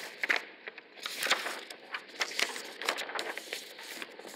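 Paper and a plastic shopping bag rustling and crinkling as they are handled, with many small crackles.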